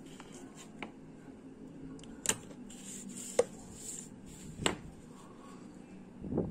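A few sharp clicks and knocks of small hard objects being handled and set down, three of them louder than the rest, over a low steady background hum.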